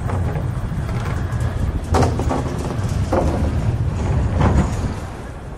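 Inline skate wheels rolling over the path surface with a steady low rumble, with sharp scraping strides about every second or so.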